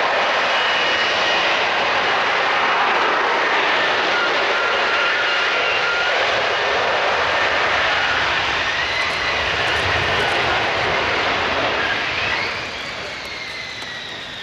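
F-35B Lightning II's F135 jet engine running loud overhead, a dense roar with a faint whine that glides in pitch. About twelve seconds in it fades, and a falling whine marks the jet moving away.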